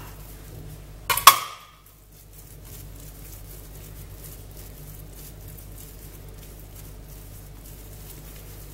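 A sharp knock about a second in, then faint soft sounds of hands working bread dough against a low steady hum.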